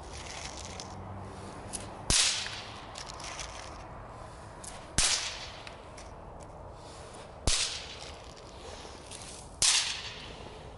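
Nico Silber Knallteufel trick crackers going off one after another: four sharp, whip-like cracks two to three seconds apart, each followed by a brief hiss, with faint crackling between them.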